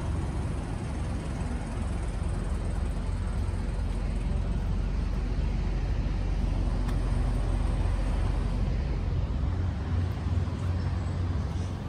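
Diesel semi-truck engine idling: a steady low rumble.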